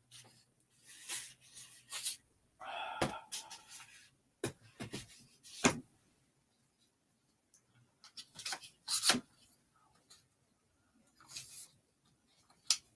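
Handling noises from a studio easel head: plastic clamps and aluminium telescoping arms knocking and clicking as a painting board is lifted off and the arms are handled, with a scrape lasting about a second around three seconds in.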